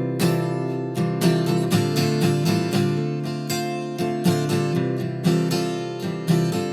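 Acoustic guitar strummed in a steady rhythm, about three strokes a second, with no singing.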